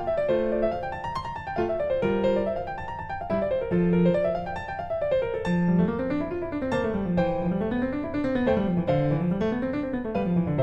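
Piano music playing rippling arpeggios that climb and fall. A lower rolling figure joins about halfway through.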